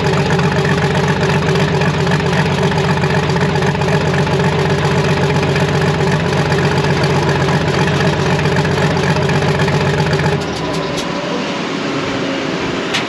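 Pro stock pulling tractor's diesel engine running at a steady speed, then cut off abruptly about ten seconds in.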